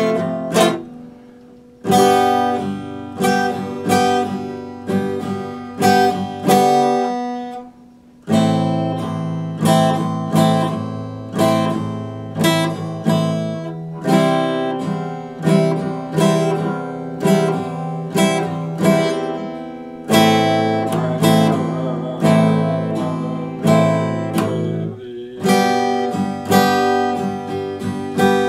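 Epiphone acoustic guitar being strummed, chords struck one after another and left ringing. The playing stops briefly twice, about a second in and again about a quarter of the way through, letting the chord die away.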